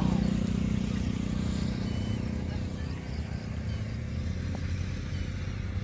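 Motor vehicle engine running steadily with a low rumble, with a few faint bird chirps above it.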